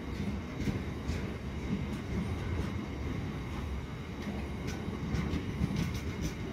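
A train at or passing through a station: a steady low rumble with scattered sharp clicks.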